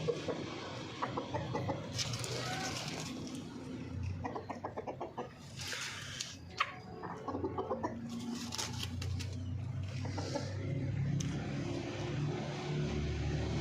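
Backyard hens clucking, with short scratchy bursts and quick runs of clicks in between.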